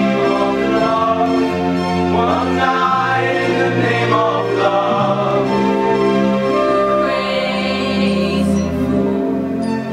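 Mixed vocal ensemble of men and women singing sustained chords in harmony, the held notes shifting every second or two.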